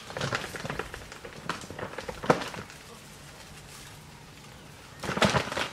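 Tree branches cracking and rustling under an African elephant's weight as it pushes against the tree: scattered snaps, one sharp crack about two seconds in, and a burst of cracking near the end.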